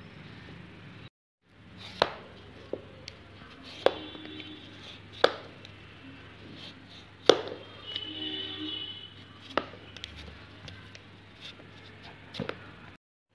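A Y-shaped vegetable peeler scraping the skin off a raw beetroot in short strokes, with sharp clicks and knocks every second or two and a longer scraping stretch near the middle.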